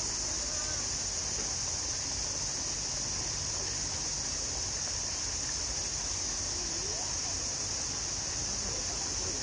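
Summer cicadas droning in a dense, steady, high-pitched chorus that does not change.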